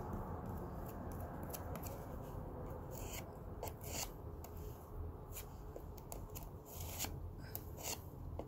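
Putty knife scraping and spreading wood putty over a chewed door frame: a run of short, irregular scrapes, over a faint steady low rumble.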